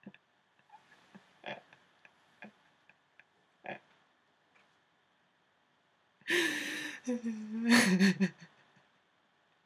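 A woman's nonverbal vocal sounds: a few short breathy laughs, then about six seconds in a loud gasping burst that turns into a drawn-out sobbing wail for about two seconds.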